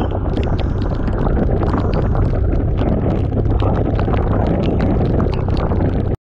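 Heavy wind noise buffeting the microphone of a moving motorcycle, with the road and engine rumble underneath. It cuts off abruptly near the end.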